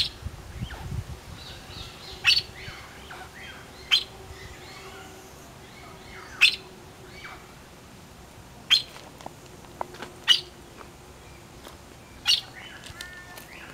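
A bird repeating a short, sharp call about every two seconds, with softer chirps in between.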